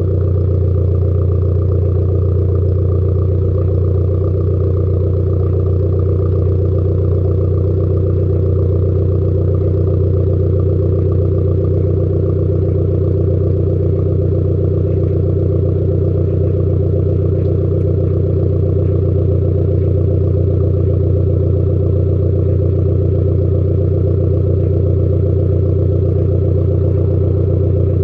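Fiat 500 Abarth 595's 1.4 turbo four-cylinder petrol engine idling steadily at warm temperature through a Malian aftermarket cat-back exhaust. The low exhaust note holds an even pitch with no revs.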